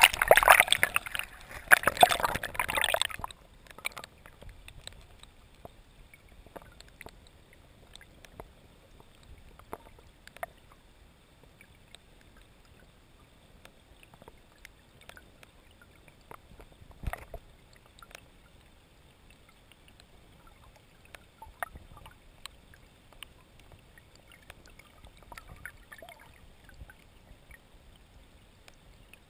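River water splashing loudly for about three seconds, then the muffled sound of the stream heard underwater, with scattered faint clicks and knocks.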